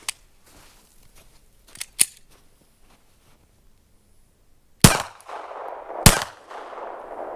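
Two pistol shots from a Glock 42 (.380 ACP), about a second apart, each with a short echoing tail. Before them come a few small metallic clicks of the gun being handled.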